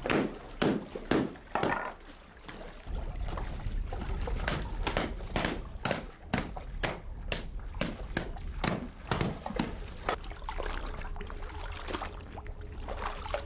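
Laundry being washed by hand in a stone washing pool: wet cloth dunked, sloshed and slapped in the water, making a quick irregular run of splashes about every half second.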